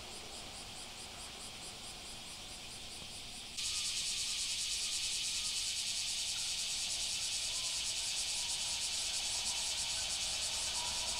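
Cicadas singing in a dense, high, rapidly pulsing chorus, which jumps suddenly louder about three and a half seconds in and then holds steady.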